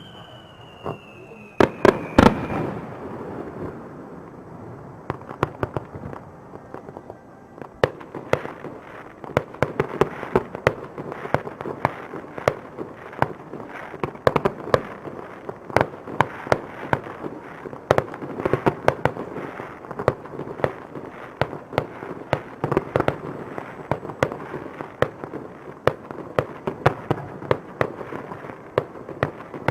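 Aerial fireworks display: a whistle falls in pitch at the start, heavy bangs come about two seconds in, and then a rapid, continuous barrage of shell bursts and crackle follows, several bangs a second.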